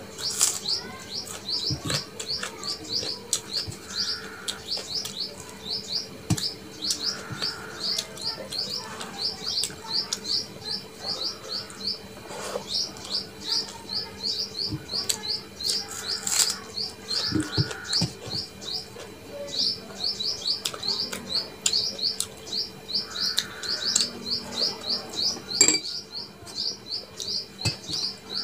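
A steady run of short, high chirps, about three or four a second, pausing briefly twice in the second half. Under it come scattered clicks and smacks of eating by hand: fingers mixing rice on a steel plate, and chewing.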